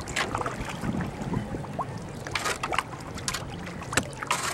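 Kayak paddle strokes: the blades dipping and splashing, with water trickling off them, in short, irregular splashes.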